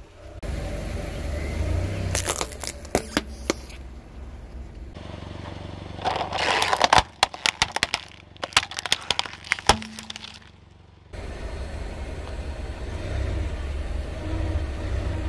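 Car tyre rolling over hard plastic toys on asphalt, the plastic cracking and snapping under the weight. A few sharp cracks come about two to three seconds in. A dense run of cracking and popping follows from about six to ten seconds as a plastic toy truck is flattened. After a short lull, the low rumble of the tyre rolling slowly on asphalt fills the end.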